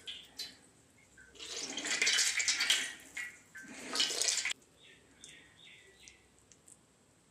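Water splashing into a steel bowl in two rushes, the second cutting off sharply about halfway through, as a soaked bread slice is squeezed out between the palms.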